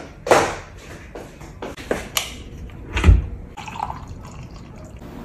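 Kitchen handling sounds: a series of sharp clicks and knocks, and a low thud about three seconds in, then liquid pouring from a blender jug into a mug.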